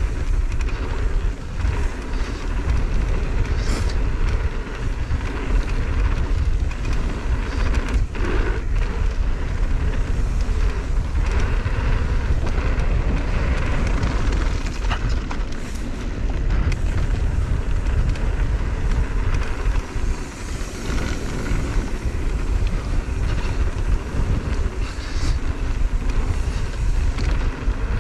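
Wind buffeting the microphone and tyres rumbling over a dirt trail as a mountain bike descends, with a few sharp knocks and rattles from the bike over bumps.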